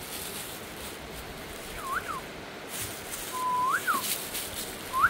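Three short whistled calls, each a single clear note swooping up and down in pitch, the middle one starting with a held note before rising and falling. Beneath them is a steady hiss of heavy rain.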